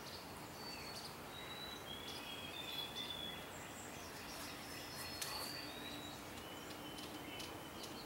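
Faint outdoor ambience with scattered thin, high whistled notes of small birds, each brief and at a steady pitch. There are a couple of short clicks about three and five seconds in.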